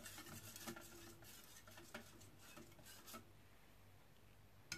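Wire whisk stirring thin rice-flour batter in a ceramic bowl: faint ticking and scraping of the wires against the bowl, stopping about three seconds in.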